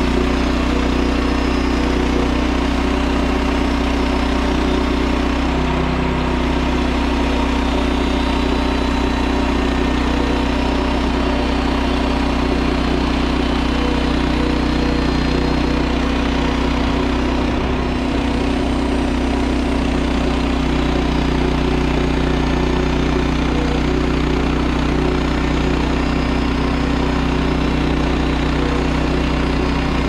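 Woodland Mills HM130 portable bandsaw mill's gas engine running steadily at an even speed.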